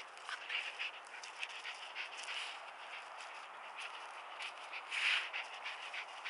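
Jack Russell terrier breathing in short, irregular huffs as it moves about in grass, with faint rustles and small clicks.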